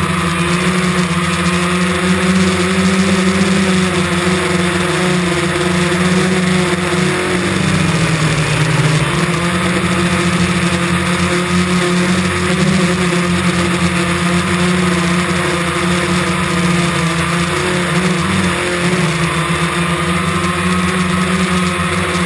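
DJI Phantom quadcopter's propellers whining steadily as it flies in high wind, with the pitch sagging briefly a third of the way in and again near the end as the motors change speed. A hiss of rushing air runs beneath the whine.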